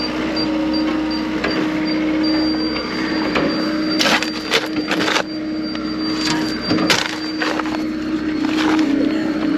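Skid loader running steadily under load while its bucket works dirt, with several sharp clanks and scrapes a few seconds in. A faint high beep repeats regularly through the first half.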